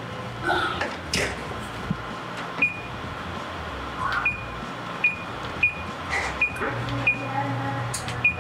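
Wall oven door shutting about a second in, then the oven's control panel beeping at each key press, about eight short high beeps, as the bake settings are keyed in. A low hum comes up near the end.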